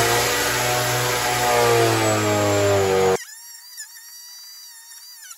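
Electric chipper/shredder (15 A, 120 V) running under load while leafy branches are fed into it. Its motor whine sags slightly in pitch over a dense grinding noise. About three seconds in it cuts off abruptly and quieter background music takes over.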